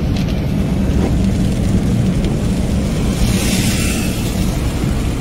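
Steady low rumble of a moving car's engine and tyres heard from inside the cabin, with a brief swell of hiss about three seconds in.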